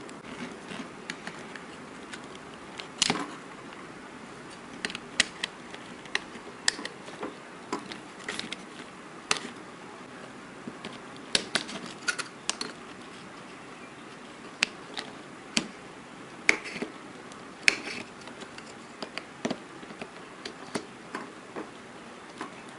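Irregular sharp clicks and scrapes of tools on the metal front name-plate ring of a 135mm prime lens, as it is forced off because a dented thread has jammed it.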